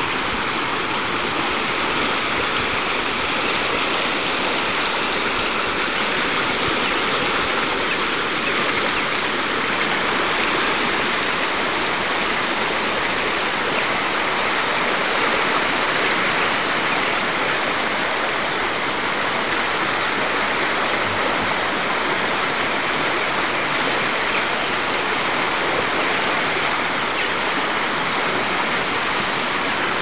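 Turbulent white water rushing over concrete sills and blocks in a walled concrete channel, a loud, steady rushing with no let-up.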